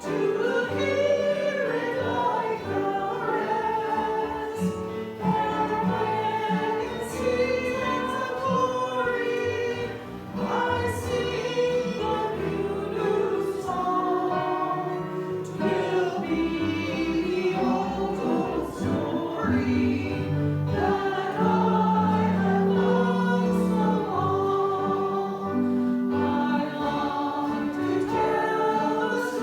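Choir singing sacred music, a hymn-like song with held low accompanying notes beneath the voices.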